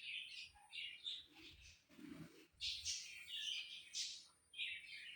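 Small birds chirping faintly in short, repeated bursts, with a few soft low knocks about two to three seconds in and a thin steady high whine underneath.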